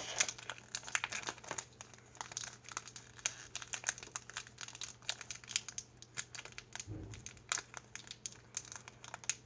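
Foil wrapper of a Pokémon card booster pack crinkling with irregular faint crackles as hands struggle to tear it open.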